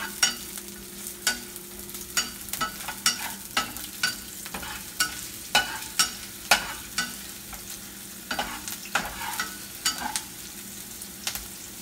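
Chopped onion frying in hot oil in a pan, a steady sizzle, while a utensil stirs it, clicking and scraping against the pan at irregular intervals.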